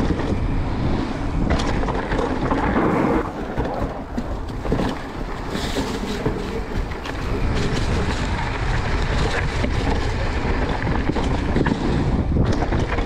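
Wind buffeting the camera microphone over the rumble of a Transition Sentinel full-suspension mountain bike rolling down a rough trail, with a steady clatter of short knocks from the bike over the ground.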